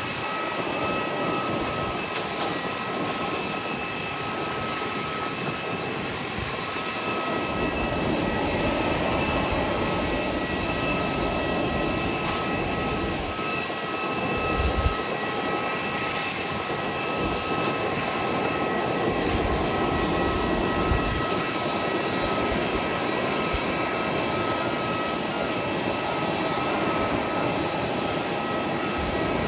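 Continuous jet aircraft noise on an airport apron: a steady rumble with several high, steady whining tones, and a brief low thump about halfway through.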